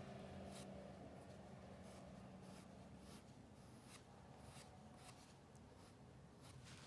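Faint scratching of a charcoal stick dragged across drawing paper: a handful of short, irregular strokes over a low steady room hum.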